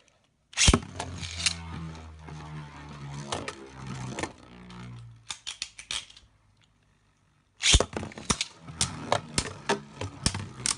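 Two Beyblade spinning tops launched into a plastic Beyblade stadium: a sharp snap, then a steady whirring hum with clicks as the tops strike each other, dying away after about five seconds. About three seconds later comes another sharp snap, then a rapid run of plastic clicks and rattles.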